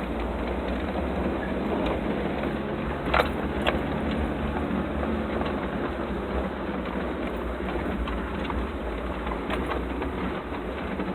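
Vehicle running over a rough track, with a steady low engine rumble and rattling, and two sharp knocks about three seconds in.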